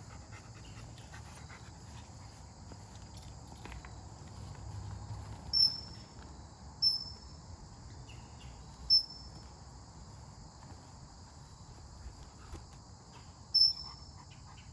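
A steady, high chorus of insects trilling outdoors. Four short, sharp, high chirps rise above it at uneven intervals and are the loudest sounds.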